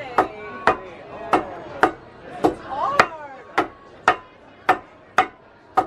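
Mallets pounding a slab of sesame, peanut and sugar candy in a steady rhythm, a sharp strike about every half second.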